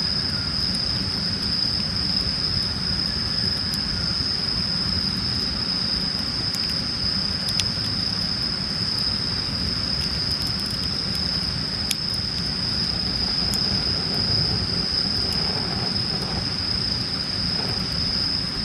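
Wood campfire burning, with a few sharp crackles over a steady low rumble and a constant high-pitched tone.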